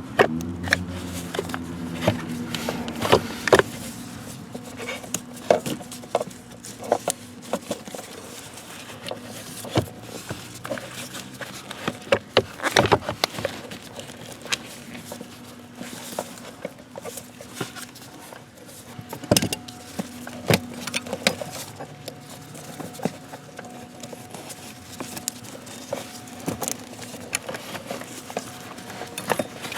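Irregular clicks, taps and knocks of hand work on car parts and fasteners, with busier clusters around a third and two-thirds of the way through, over a faint steady hum.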